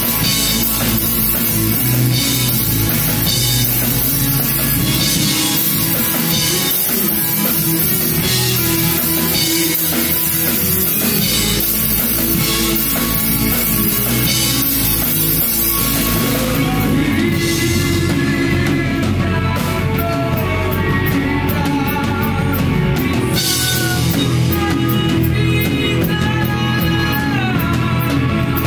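A rock band playing at full volume in a rehearsal room: distorted electric guitars through amplifier stacks, bass and a drum kit. About halfway through the dense cymbal wash drops away and a sustained guitar line with bent notes comes forward over the rhythm.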